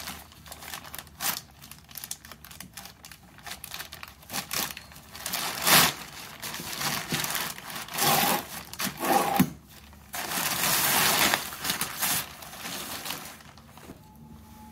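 Thin black plastic sheeting crinkling and rustling in irregular bursts as it is handled and cut with a utility knife, with a longer stretch of rustling about ten seconds in.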